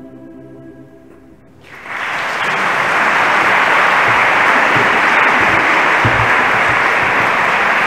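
The last held chord of the choir and organ fades away. Just under two seconds in, an audience breaks into steady applause, which becomes the loudest sound.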